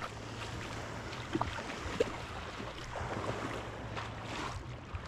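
Wind buffeting the microphone over moving water, with a steady low hum underneath and a couple of short high blips about one and a half and two seconds in.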